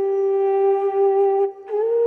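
Background music: a flute-like melody playing long held notes, one note sustained for about a second and a half, then a short break and a slightly higher note.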